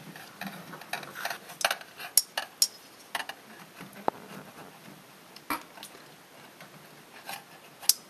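Hands fitting a clamp-on magnet against the copper refrigerant tubing behind a fridge: scattered small clicks, knocks and rattles of hard parts being handled, busiest in the first few seconds, then a few isolated clicks.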